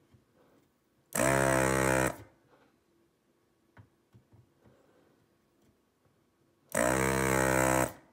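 A desoldering gun's vacuum pump runs in two bursts of about a second each, a steady buzz with a hiss of suction, pulling molten solder from a tantalum capacitor's through-hole legs to free it from the board.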